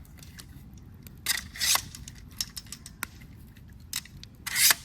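Plastic clicks and scraping as the fold-out legs of a telescopic camping lantern are handled and set: scattered light clicks, with two short scraping rubs about a second and a half in and near the end.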